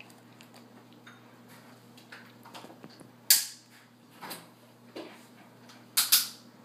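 A baby's short, sharp mouth noises while eating green beans: a handful of quick noisy bursts, the loudest about three seconds in and a double one near the end.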